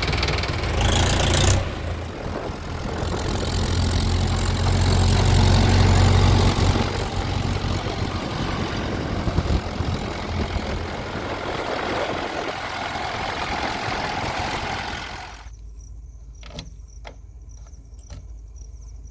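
Heavy-machinery diesel engine running with a steady low drone, swelling loudest about four to six seconds in. About fifteen seconds in it cuts off abruptly to a much quieter background with a few sharp clicks.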